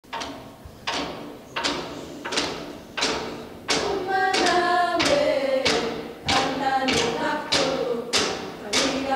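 A steady beat of sharp knocks, about one and a half a second, with group singing in unison joining about four seconds in: a Greenlandic dance song.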